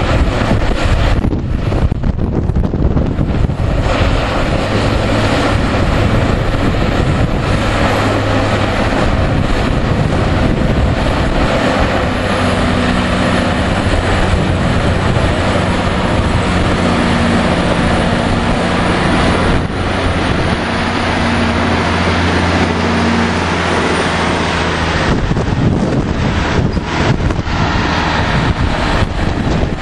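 Mount Washington Cog Railway diesel locomotive running as it pushes a coach up the rack track close by, its steady engine drone strongest through the middle stretch, with wind buffeting the microphone throughout.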